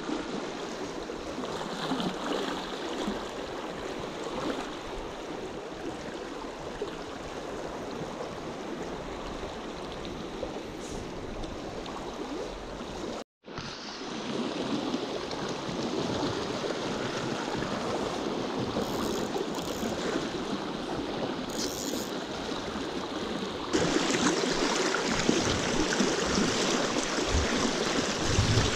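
Rushing water of a shallow, rocky trout stream's riffles: a steady rush that breaks off briefly about halfway through and comes back louder for the last few seconds.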